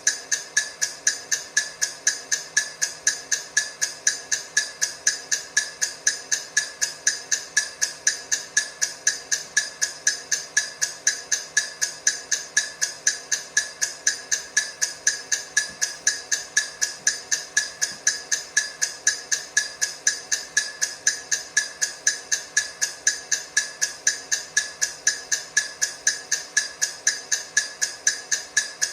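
Countdown timer ticking: sharp, even ticks, a few a second, with no break.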